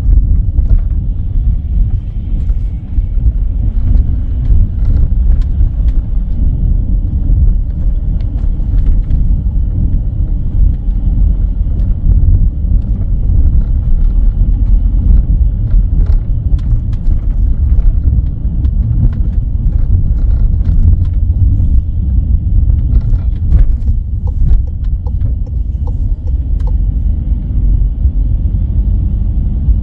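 A car driving along, with a steady low rumble of road and engine noise and scattered faint ticks and rattles.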